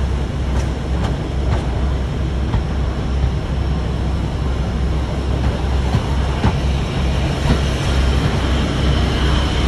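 Class 52 'Western' diesel-hydraulic locomotive's twin Maybach engines running as the train rolls along, a steady low drone, with faint clickety-clack of wheels over rail joints about once a second.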